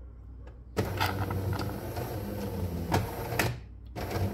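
Jura automatic coffee machine running with a mechanical hum. It starts abruptly about a second in, gives a couple of sharp clicks, pauses briefly and starts up again near the end.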